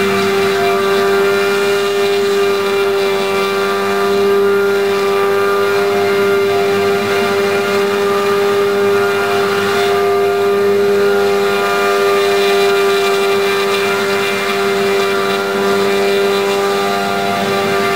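Martin Jetpack's two-stroke V4 engine driving its twin ducted fans, running loud and steady at one pitch as it holds the machine in a low hover.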